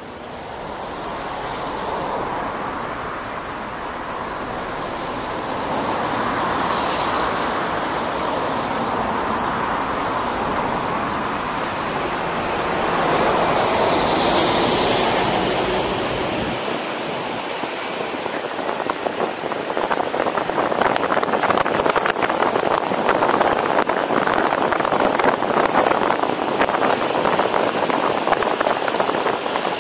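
Wind rushing over the microphone of a roof-mounted 360 camera, with the road noise of the moving MPV beneath it, growing louder as the car picks up speed. A vehicle passes near the middle, and in the last third the wind turns into rough buffeting.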